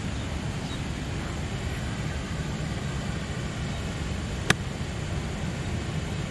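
A sand wedge striking a golf ball on a short pitch shot: one sharp click late on, over a steady low background rumble.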